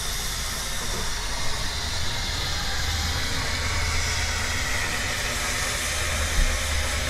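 Wood-fired narrow-gauge steam locomotive CFI 764-431 standing with steam hissing steadily from low down beside it, over a steady low rumble.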